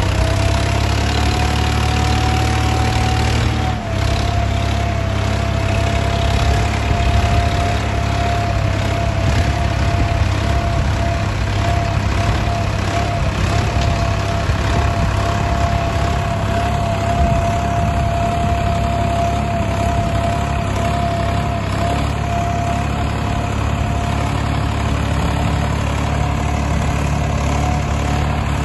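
Swaraj 963 FE tractor's diesel engine running steadily while pulling a plough through a field, with a steady whine over the engine rumble. The whine drops slightly in pitch about four seconds in.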